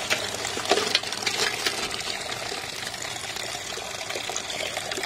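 Water running and splashing in an aluminium pot as small crabs are washed, with a few sharp splashes in the first two seconds.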